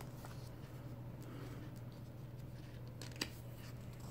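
Sticker sheets being handled and set down on a table: faint taps and paper rustling, with one sharper tick about three seconds in, over a low steady hum.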